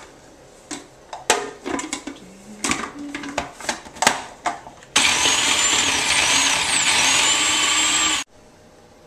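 Hard plastic clicks and knocks as the food processor's feed-tube pusher and lid are handled and fitted. About five seconds in, the food processor's motor starts and runs steadily with a whine for about three seconds, blending the icing mixture, then stops abruptly.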